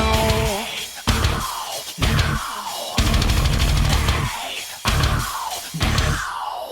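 Background rock music, an instrumental stretch with a loud drum kit and distorted band hits about once a second, each followed by a decaying cymbal crash.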